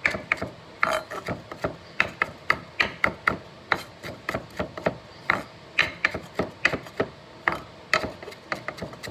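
Knife chopping fresh mint: an uneven run of sharp chops, about two a second.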